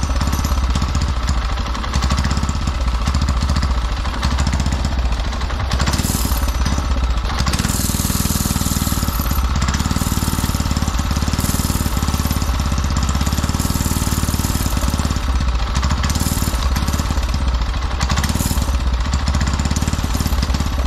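Small single-cylinder pressure washer engine fitted to a go-kart, running continuously, with its governor disconnected and its throttle worked by a rigged cable. It grows louder briefly a few times.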